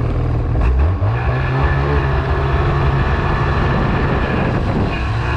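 Ski-Doo MXZ 800 snowmobile's two-stroke engine running under throttle; the pitch climbs about a second in, then holds steady.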